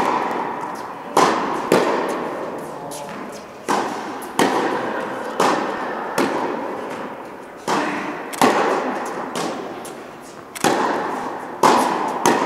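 Tennis rally in a large indoor hall: rackets striking the ball and the ball bouncing on the court, about a dozen sharp hits roughly one a second. Each hit is followed by a long echo.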